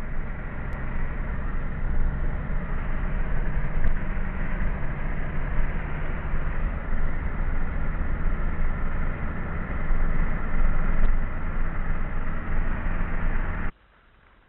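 Car driving, heard from inside the cabin: a steady low engine hum under road rumble. It cuts off abruptly near the end.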